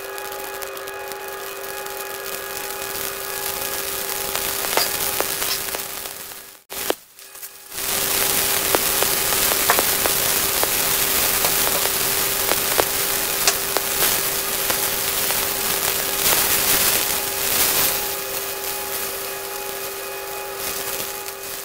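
Water boiling in a wok on a gas stove: a steady hiss with many small crackling pops, over a constant hum. The sound drops out briefly about seven seconds in, then returns with more popping.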